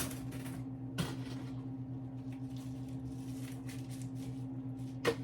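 Steady low hum, with a couple of faint clicks about a second in and near the end.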